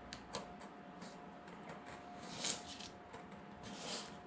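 Hobby knife blade scraping and cutting small bolt holes through thin food-packaging cardboard: a few short scratchy strokes, the loudest about two and a half seconds in.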